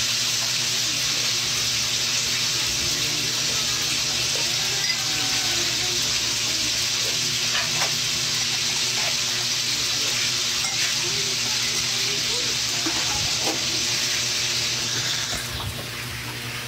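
Steady sizzling hiss of food frying, with a spoon stirring in a glass of coffee. The hiss drops away near the end.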